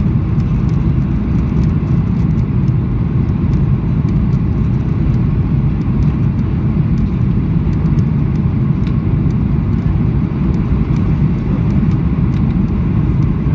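Steady cabin noise inside a Boeing 737-800 heard from a window seat over the wing: the low, even rush of its CFM56 engines and airflow as it descends with flaps extended. Faint scattered clicks sit on top.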